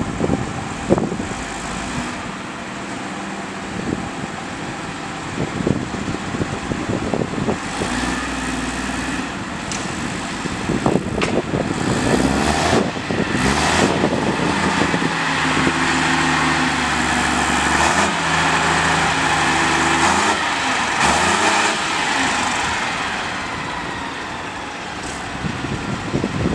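Diesel engine of a railway draisine (track maintenance vehicle with crane) running as the vehicle moves off along the track. The engine note picks up about a third of the way in, changes pitch a few seconds later, then holds steady and eases off near the end.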